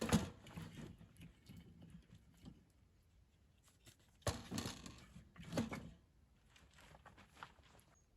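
Three short bursts of crunching and rustling, one at the start and two about halfway through, with scattered light clicks in between.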